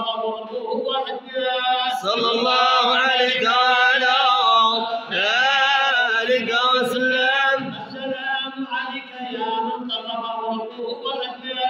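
A group of men chanting madih, devotional praise of the Prophet, unaccompanied and in unison, with long wavering held notes. The chant grows louder about two seconds in.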